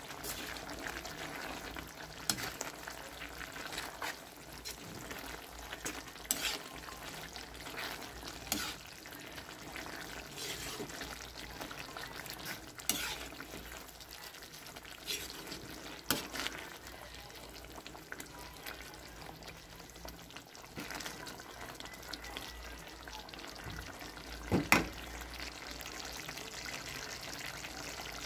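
Chicken curry in coconut milk simmering in a wok while malunggay leaves are stirred in. A utensil clicks and knocks against the pan every few seconds, once more loudly near the end.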